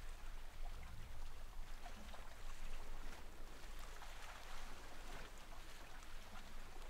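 Faint steady hiss over a low hum, with no distinct events: background room tone.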